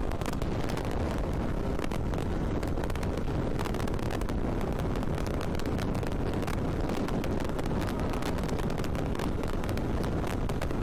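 Yamaha RX 135's single-cylinder two-stroke engine running steadily while the motorcycle rides along a highway, mixed with heavy wind noise on the microphone.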